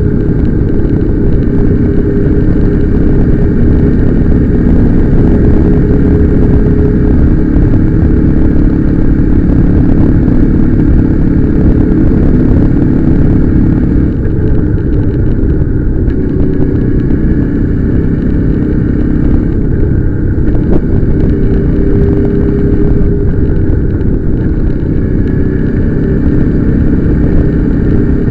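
Motorcycle engine running under way, its pitch dipping and rising a few times as the road speed changes, under heavy wind noise on the microphone.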